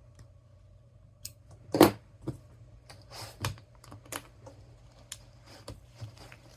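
Irregular light clicks and taps from handling cross-stitch materials and tools, with one louder knock about two seconds in.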